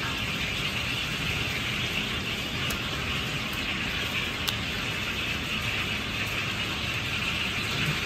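Steady rushing background noise of a commercial kitchen, with a faint tap of a cleaver on a plastic cutting board about four and a half seconds in.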